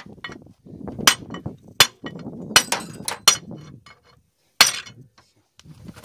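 Hammer blows on seized parts of an SMD-62 tractor-combine diesel engine during teardown, struck to knock them loose. About seven sharp metallic strikes come at uneven intervals, with lower clattering of parts between them.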